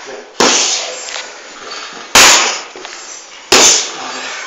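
Boxing gloves striking focus mitts: three loud, sharp smacks about a second and a half apart, each trailing off in the room's echo.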